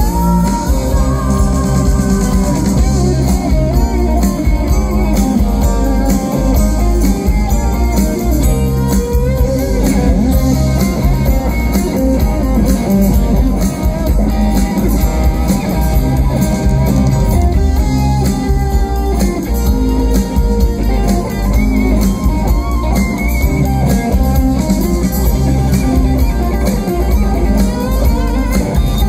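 Live rock band playing, with electric guitar to the fore over a drum kit.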